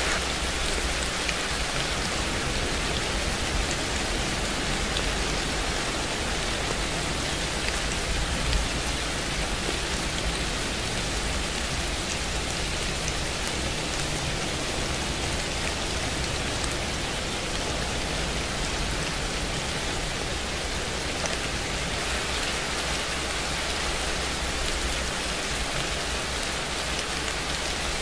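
Steady rain, an even hiss with faint scattered drop ticks.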